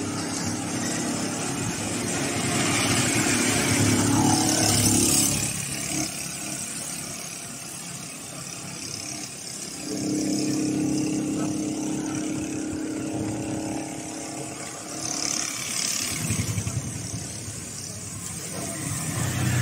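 Road traffic: engines of cars and motorcycles running and going past, swelling louder about five seconds in and again near the end.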